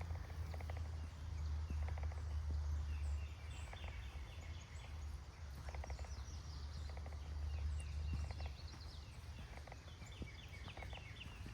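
Small birds chirping in quick series of short high notes, again and again, over a steady low rumble and a few faint footstep crunches.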